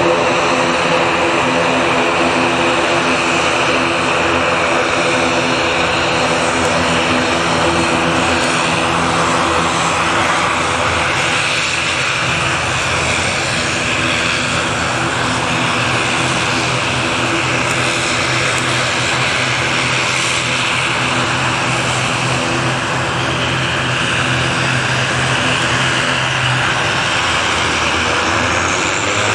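ATR 72 turboprop airliner taxiing, its two turboprop engines running at low power with a steady hum of several tones over a hiss. A low tone steps slightly in pitch near the end as the engine power changes.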